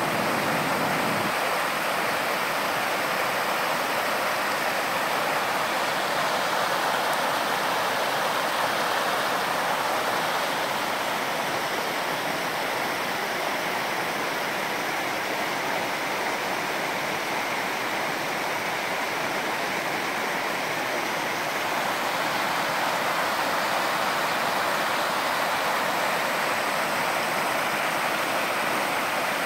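Tanew river water rushing over a run of small cascades formed by low rock ledges: a steady, even rush with no pauses.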